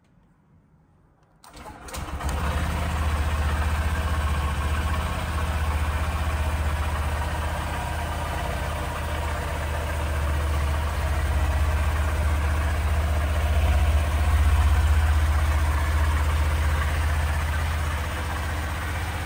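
Honda CB125F's 125cc single-cylinder four-stroke engine starting about a second and a half in, then idling steadily.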